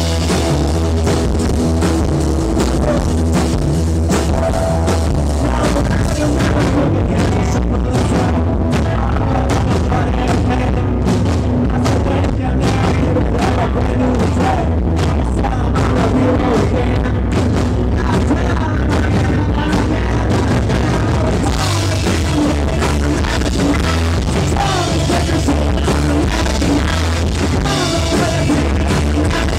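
Rock band playing live: drum kit, guitars and bass going at a steady, loud level throughout.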